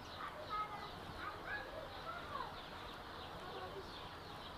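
A crowd of baby chicken chicks peeping: a dense, continuous chorus of short high chirps, many falling in pitch, with a few louder peeps in the first couple of seconds.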